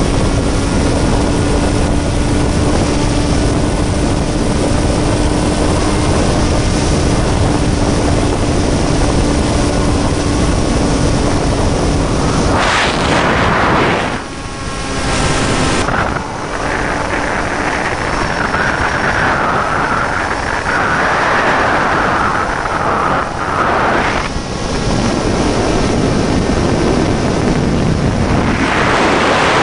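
Electric motor and propeller of a Ranger EX RC model plane in flight, heard from the onboard camera under heavy wind rush. A steady motor tone runs for about the first twelve seconds, then fades, leaving mostly rushing wind with a few brief dips.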